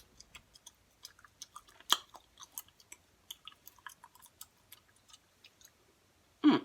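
Quiet, irregular chewing and lip-smacking close to the microphone, several small mouth clicks a second, with one sharper smack about two seconds in. A short loud burst of voice comes at the very end.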